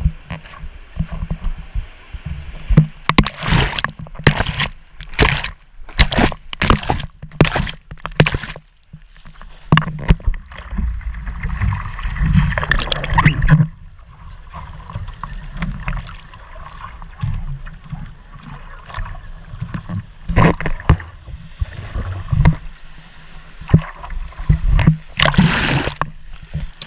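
Seawater splashing and rushing around a surfer paddling a surfboard, heard from a wrist-mounted camera: a run of quick splashes from hand strokes, then a longer rush of water about halfway through and again near the end, over a low buffeting rumble of water against the camera.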